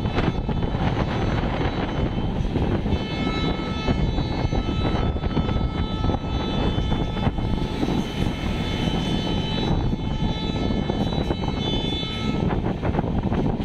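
Passenger train running at speed: a steady rumble of wheels on the track and rushing air. A high, steady whine of several tones sits over it from about three seconds in until near the end.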